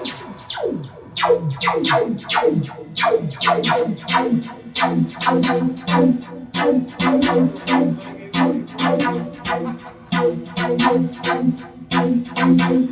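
Experimental noise music: a rapid run of plucked or struck electronic notes, each dropping sharply in pitch as it starts, over a steady low sustained drone.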